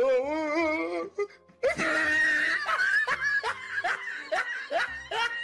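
Laughter over music: a wavering, high-pitched laugh, a brief pause about a second in, then a long held note followed by quick repeated rising laughs.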